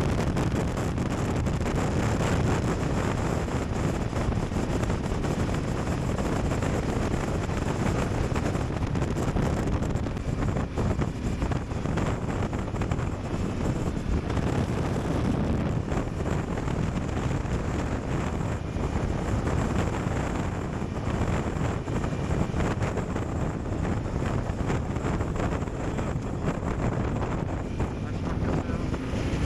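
Wind buffeting a camera microphone while riding a motorcycle, with the motorcycle running underneath; a steady, unbroken rush.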